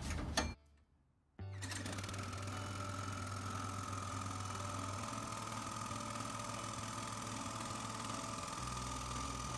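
Homemade corn grinder's motor running steadily, with a low hum and a thin, steady high whine. The sound cuts out for under a second about half a second in, then comes back and holds.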